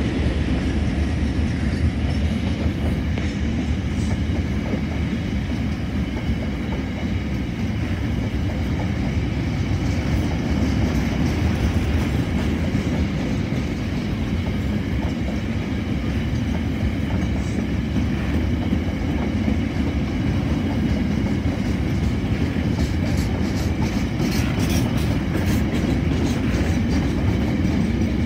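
Loaded coal hopper wagons rolling past close by: a steady low rumble with the clatter of wheels on the rails, and a run of sharp clicks in the last few seconds.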